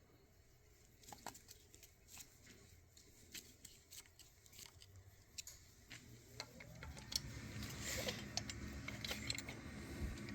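Faint, scattered light clicks and small metal handling sounds from a carburetor being turned over and checked by hand. They grow into a denser stretch of handling noise for the last few seconds.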